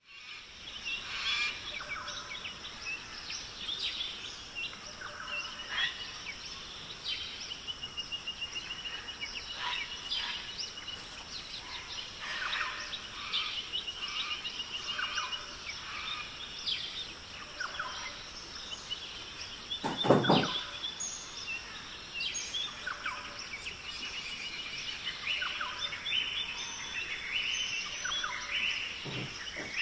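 Small birds chirping and trilling again and again over a steady high hiss. A short thump about twenty seconds in is the loudest sound, and a softer one comes near the end.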